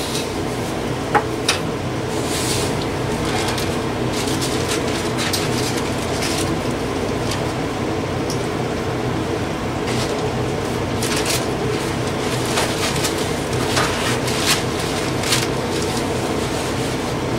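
Steady hum of the camper's furnace blower, with scattered crinkles and small clicks from food wrappers and a chip bag being handled.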